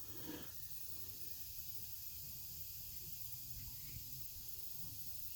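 Faint steady hiss with a low hum underneath, and no distinct event.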